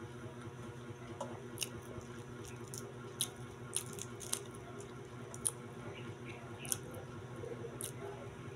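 Close-up chewing of kwek-kwek (deep-fried, orange-battered quail eggs), with about seven sharp clicks scattered through, over a steady low hum.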